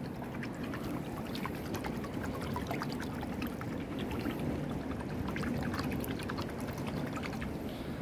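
Water splashing and sloshing as a small spatula is swept sideways back and forth through shallow water, a steady wash dotted with many small splashes and drips.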